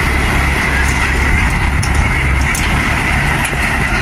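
Engine running steadily, a constant low hum under an even hiss.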